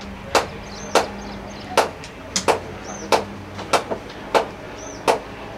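A series of sharp knocks, about one every two-thirds of a second, over a steady low hum. A short high chirp repeats every second or two.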